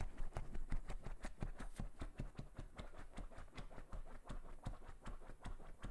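A dog's claws scratching rapidly at a fabric-upholstered chair: a fast, even run of scratch strokes, several a second.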